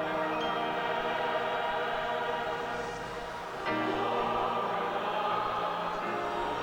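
Choir singing in long held chords; the sound dips and a new chord comes in about three and a half seconds in.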